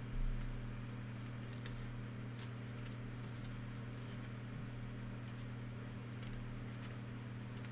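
Trading cards being handled and sorted, giving scattered faint clicks and ticks, over a steady low electrical hum. There is a soft thump about a quarter of a second in.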